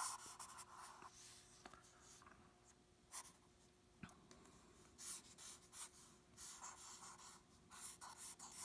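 Faint strokes of a drawing tool scratching across paper, in short irregular bursts that come more often in the second half.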